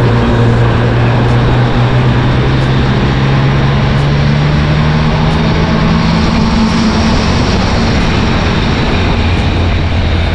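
Triumph Street Triple RS three-cylinder engine pulling under way at low road speed, heard from the rider's seat over wind noise. Its note climbs steadily as the bike gathers speed, then drops to a lower note about two-thirds of the way through.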